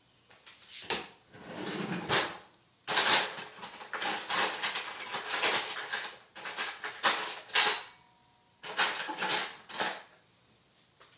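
Dishes and utensils clattering and being handled in a kitchen, in uneven bursts with a short pause near the end.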